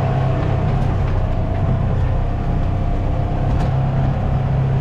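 A vehicle's engine runs at a steady, even drone, heard from inside the cab while it drives over rough pasture, with a couple of faint knocks.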